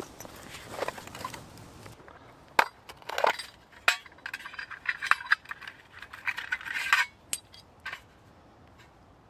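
Small metal char-cloth tin being handled and opened: a few sharp clicks of the tin lid and light metallic clinks, with rustling at the start as a hand rummages in a bag.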